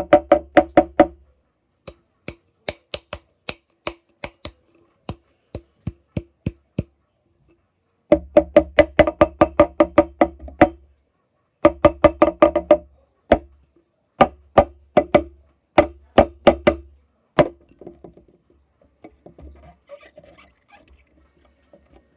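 Rapid knocking in irregular bursts, about five strikes a second, with a ringing note under the densest runs: a utensil striking the container while slime is stirred with added water. The knocking dies away into faint clicks near the end.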